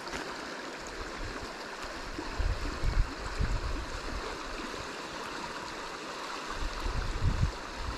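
Steady rush of a shallow river flowing and rippling past the bank, with a few low rumbles about two and a half seconds and seven seconds in.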